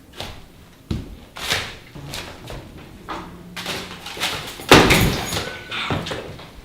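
A series of separate knocks and thumps: the first about a second in, the loudest nearly five seconds in, which dies away over about half a second.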